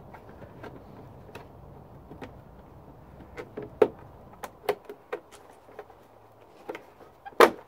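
Scattered plastic clicks and knocks as a scooter's plastic body panel is pried up and handled, with one louder knock near the end.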